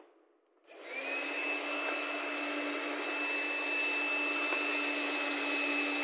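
Cordless vacuum cleaner switched on about a second in, its motor quickly spinning up to a steady high whine over a rushing suction noise.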